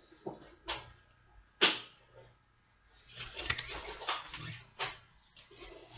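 Stiff paper recipe card being handled and turned over: a few sharp flicks, the loudest about a second and a half in, then a stretch of crinkly paper rustling from about three to five seconds in.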